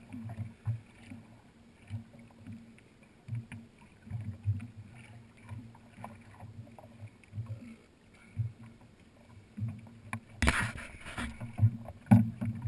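Small waves lapping and slapping irregularly against the hull of a personal watercraft drifting on a lake. About ten seconds in, a loud rushing noise, like a gust of wind on the microphone, takes over.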